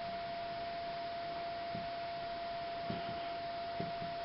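A steady single high tone, like an electrical whine, held without change over a faint hiss, with a few soft low knocks in the second half.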